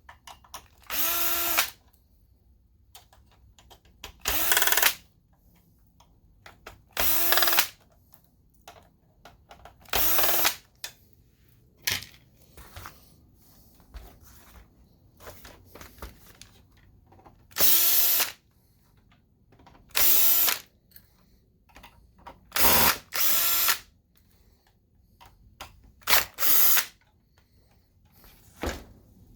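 Cordless electric screwdriver backing out the screws that hold a projector's main board. It runs in about ten short spurts, each under a second, its pitch rising as the motor spins up, with quiet handling between them.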